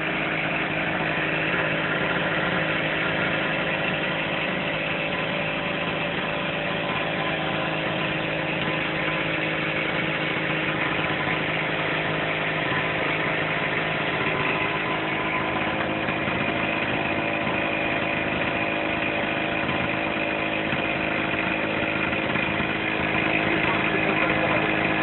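Small portable petrol generator's engine running steadily, fuelled only by HHO gas from an electrolysis cell.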